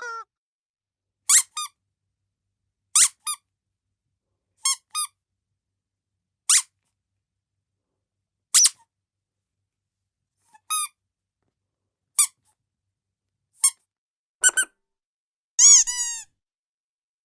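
Squeaky dog toy squeezed in short, high squeaks, singly or in quick pairs, every second or two. A longer, drawn-out squeak comes near the end.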